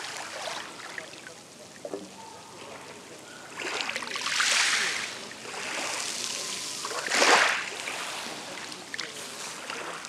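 Small Black Sea waves lapping and washing over a pebble shore, with two louder swishes about four and a half and seven seconds in.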